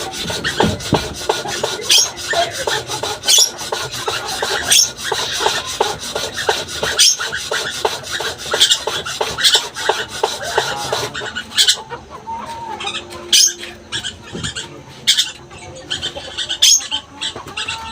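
Lorikeet chattering in a continuous harsh, raspy run, broken every second or two by short shrill squeaks; the chatter thins out a little past halfway.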